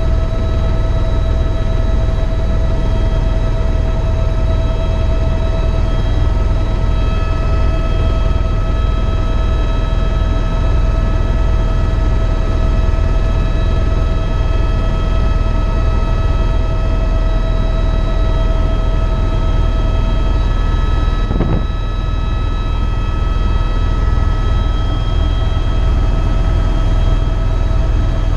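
Eurocopter EC130 EcoStar helicopter running steadily: a heavy low drone from the rotor and engine, with several steady whining tones over it.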